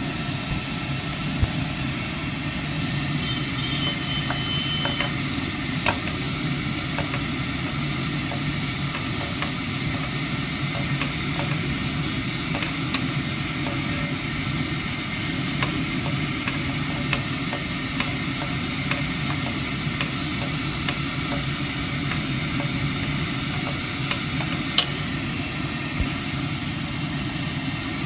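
Shredded red cabbage and egg sizzling in an oiled frying pan while a wooden spoon stirs them, with scattered light knocks of the spoon against the pan, the sharpest about three-quarters of the way through, over a steady low hum.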